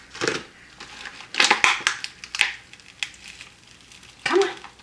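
Soap packaging crinkling and rustling in several short bursts as a glued-together three-pack of soap bars is pulled apart and handled.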